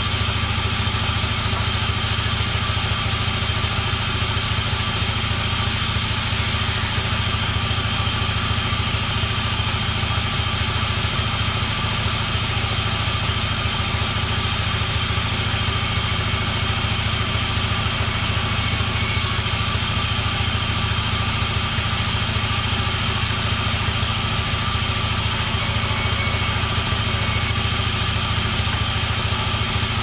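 Sawmill machinery running steadily with no change in speed or load: a constant low hum with a steady high whine.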